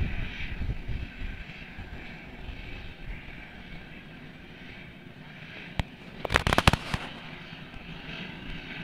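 A helicopter running on the ground some way off, a steady turbine and rotor sound. About six seconds in comes a quick run of sharp cracks, the loudest thing here.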